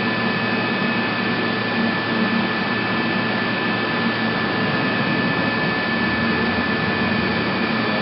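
AVIA FNE 50 N CNC tool milling machine running steadily: an even machine noise with a constant high whine and a low hum.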